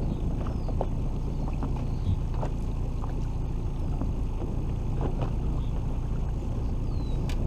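Steady low rumble aboard a small aluminium fishing boat on open water, with scattered light ticks and splashes.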